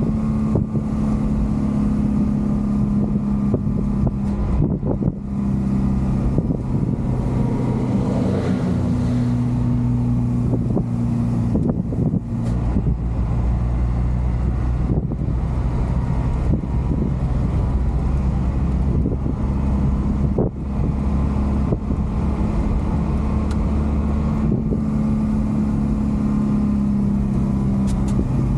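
JAC truck's diesel engine running under way, heard inside the cab, with road and wind noise. The engine note drops lower about twelve seconds in and comes back up near the end.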